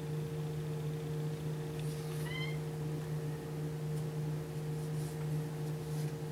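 A steady low mechanical hum, with one brief high-pitched animal call about two seconds in.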